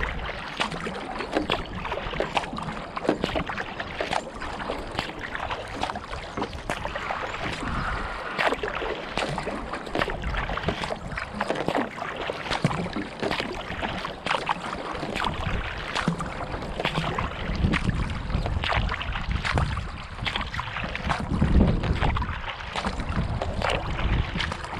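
Water splashing and lapping against a kayak's bow as it is paddled along, heard close up from a camera on the front deck as a constant, irregular patter. Wind rumbles on the microphone, building in the second half.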